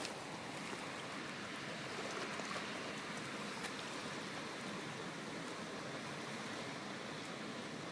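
Steady rushing noise of canal water and outdoor air, with a few faint clicks.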